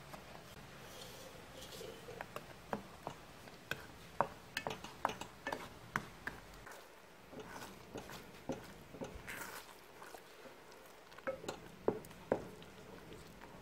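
A wooden spatula stirs mango and sugar in an enamel saucepan, knocking and scraping against the pan's sides and bottom in quick, irregular clicks. The clicks are busiest in the middle and again near the end.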